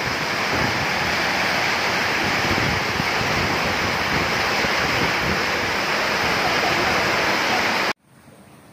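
Steady loud rushing of water, as of heavy rain or running floodwater, that cuts off suddenly near the end.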